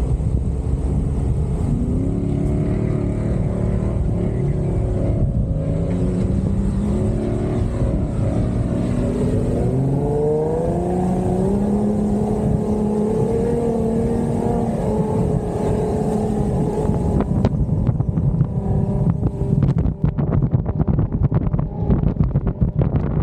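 Jeep Wrangler engine revving under load, its pitch climbing in several ramps as it pulls through the gears. Near the end, wind buffets the microphone with rough crackling.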